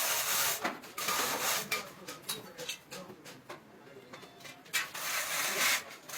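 Abrasive rubbing strokes on a truck's axle tube, as when sanding or filing it by hand, coming in uneven runs with a quieter spell in the middle.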